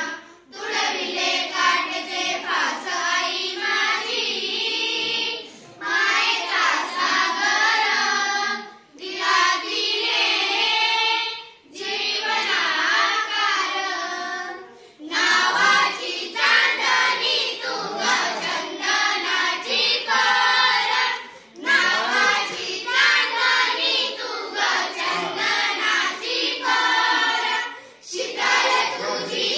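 A group of young girls singing a Marathi song together without instruments, in sung phrases broken by short pauses for breath every few seconds.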